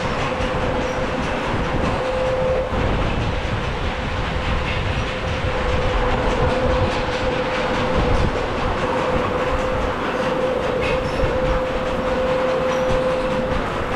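Rushing water and rumble of a rider sliding down a water slide: a loud, steady rush with a constant hum.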